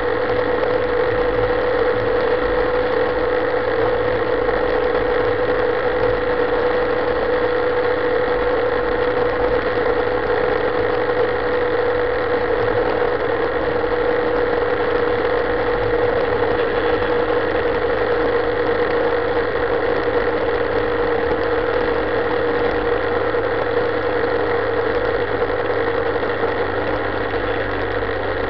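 Motorcycle engine running steadily at cruising speed, about 4,000 rpm at around 100 km/h, a constant drone with a strong steady tone and road and wind noise underneath. It eases off slightly near the end.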